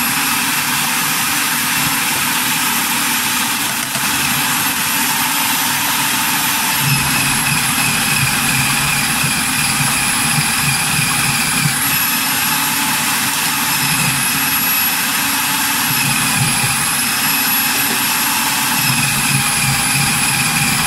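Electric food processor motor running steadily with a high whine that dips slightly in pitch now and then. Its blade is grinding a thick jaew bong paste of fermented fish, chili, lemongrass, kaffir lime leaves and tamarind.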